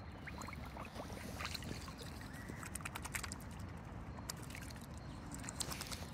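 Mute swan dabbling its bill at the water surface to take floating food, giving quick irregular clicks and small splashes over a low steady rumble.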